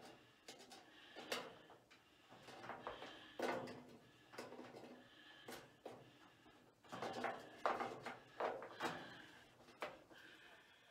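Irregular clicks, knocks and short scrapes of a screwdriver and screw being worked against a washer lid switch's mounting holes, the screw not catching the thread.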